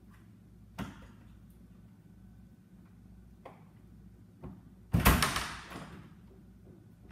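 A sharp knock about a second in, a few faint ticks, then a loud bang about five seconds in that rings on for about a second, over a low steady hum.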